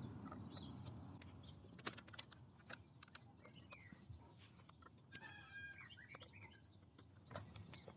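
A few sharp clicks as MC4 solar cable connectors are handled and snapped into the microinverter's input ports, with faint bird chirps in the background.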